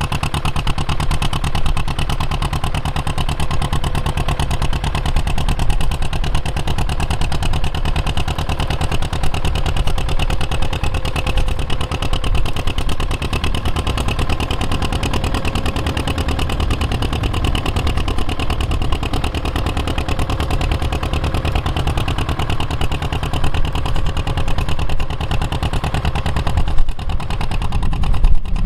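Bukh Juno vintage diesel tractor engine running steadily under load as it pulls a plough through the soil. It grows louder and more uneven in the last couple of seconds.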